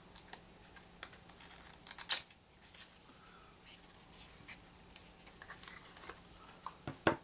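Faint handling of a small cardboard card box and its paper rules leaflet as they are opened: scattered soft rustles and ticks, with a sharper click about two seconds in and another near the end.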